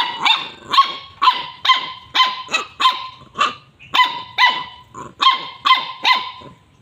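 Small puppy barking at a snake in front of it: a rapid series of short, high-pitched barks, about two a second, with a brief pause about halfway through.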